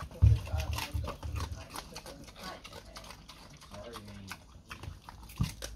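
Pig eating raw pumpkin: wet, crunching chews and smacking of the snout, with a loud low knock just after the start.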